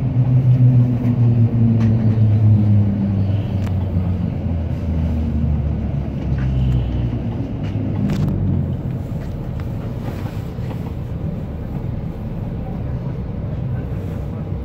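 Shanghai Transrapid maglev train heard from the cab as it slows alongside the station platform: a low, pitched drive hum slides steadily down over the first several seconds, then settles into an even low rumble with a few light clicks.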